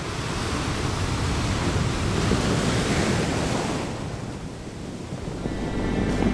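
Ocean surf: a wave washing in, swelling and then ebbing away, with soft music fading in near the end.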